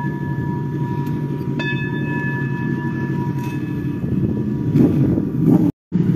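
Brass singing bowl ringing from a strike just before, then struck again about one and a half seconds in, each time a clear tone of several pitches that slowly fades. Under it a steady low rumble, and the sound cuts out briefly near the end.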